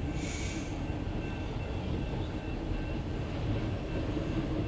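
Empty autorack freight cars rolling past over a grade crossing: a steady low rumble, heard from inside a stopped car. A grade-crossing bell rings faintly at a steady pace over it.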